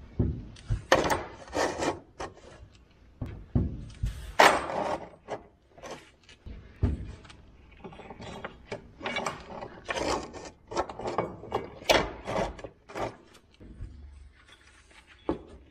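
Rusty manure-spreader conveyor-chain links clanking and scraping on the spreader's steel floor as they are picked up, handled and laid down. The knocks come irregularly, one or two at a time.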